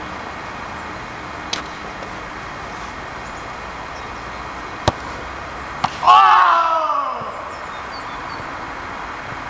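A football struck twice on a hard outdoor court, two sharp thuds about a second apart, followed at once by a loud shout from a player that falls in pitch over about a second.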